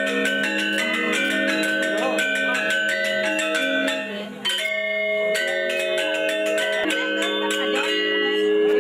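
Balinese gamelan music: bronze metallophones striking fast runs of bell-like notes over long ringing tones. It dips briefly and starts again about four and a half seconds in.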